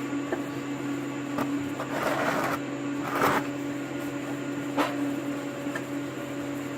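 A few sharp knocks and two short scraping rustles as mower parts and tools are handled, over a steady electrical hum.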